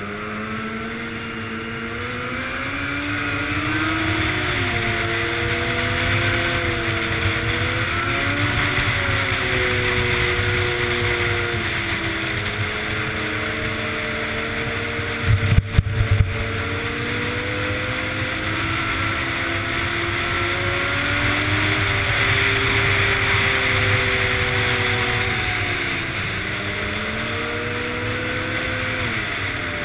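Snowmobile engine running at speed, its pitch rising and falling as the throttle changes, with wind rushing over the helmet-mounted microphone. A few sharp knocks come about halfway through.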